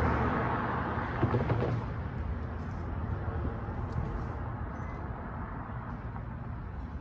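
A pickup truck driving past, its engine and tyre noise loudest at the start and dying away within about two seconds, leaving a low steady rumble of city traffic.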